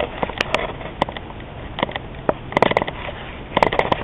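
Fox 35 two-stroke glow engine on a model plane being flipped over by hand at the propeller: single sharp pops, then twice a short burst of several rapid pops as the engine fires for a moment without catching.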